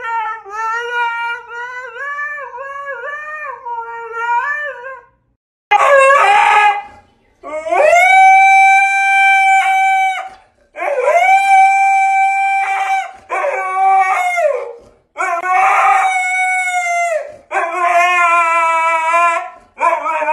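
Siberian husky howling: from about six seconds in, a run of about five long, drawn-out howls, each held steady for one to three seconds with short breaks between.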